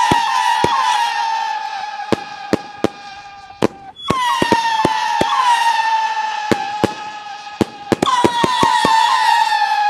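Banshee 30-shot fireworks cake firing volleys of screaming whistles. Each whistle sags slightly in pitch and fades over about four seconds, with fresh volleys about four and eight seconds in. Sharp pops and bangs go off throughout.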